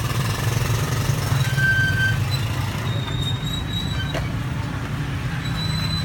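Steady low mechanical rumble, with a few faint high whistles and light clicks over it.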